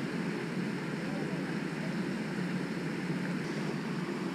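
Steady low background rumble with no distinct single event.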